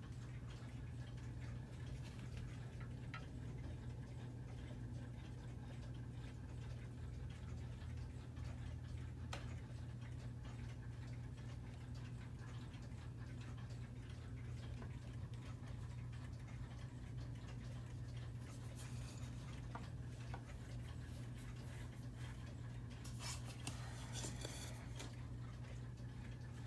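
Howard Miller Stafford battery-operated quartz mantel clock ticking faintly over a steady low hum, with some rustling near the end.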